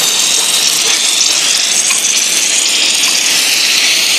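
Submerged arc welding head on a welding manipulator working along a steel plate under a bed of granular flux: a steady, loud hiss.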